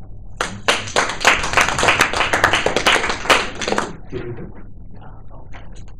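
Small audience applauding: dense hand clapping that starts under a second in and dies away about four seconds in, followed by faint shuffling.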